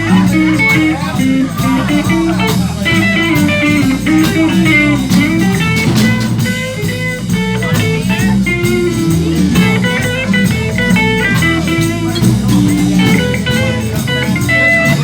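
Live blues-style band playing an instrumental break: a guitar lead of quick, separate notes over drums and low bass notes.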